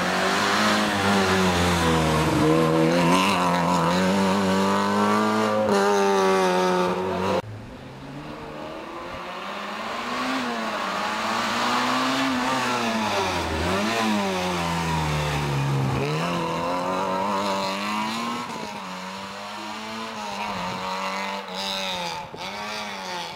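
Peugeot 106 rally car engine run hard on a tarmac stage. The engine note climbs and drops again and again as the car accelerates and lifts for bends or gear changes, with an abrupt cut to another pass about seven seconds in.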